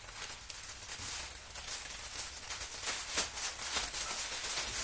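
Plastic courier mailer and wrapping rustling and crinkling as they are handled and pulled open, in many short, irregular crackles, one louder about three seconds in.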